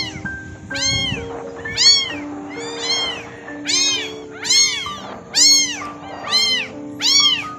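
A very young tabby kitten meowing over and over, about one high cry a second, each rising and then falling in pitch. Soft background music with held notes plays underneath.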